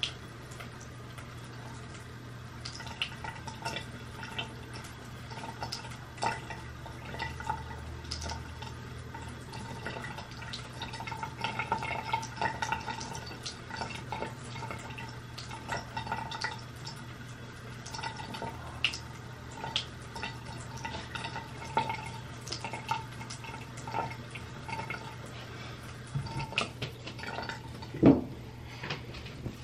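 Water dripping and splashing at a sink, with small irregular clicks and knocks from handling, over a steady low hum. One louder knock comes near the end.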